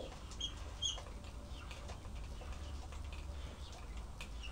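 Whiteboard marker writing on a whiteboard: faint scratching strokes, with two short high squeaks of the tip in the first second.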